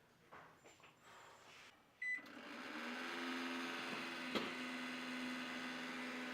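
Emerson microwave oven started with a short keypad beep, then running with a steady hum, with a single click partway through.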